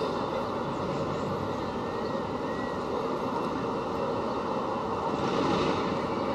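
Steady city traffic noise with no single vehicle standing out, growing a little louder about five seconds in.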